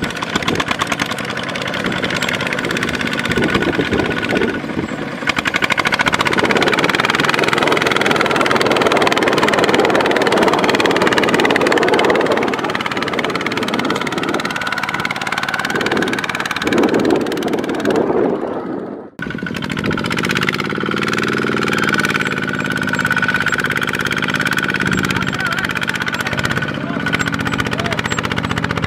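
Diesel engines of a small farm tractor and a rice combine harvester running continuously and loudly, with a steady high whine over the engine note. About two-thirds of the way through the sound drops out briefly, and the engine note that follows is different.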